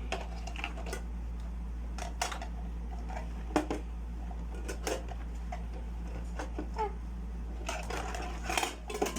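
Small plastic toy pieces and packaging clicking and clattering as they are handled, in irregular taps with a short cluster near the end, over a steady low hum.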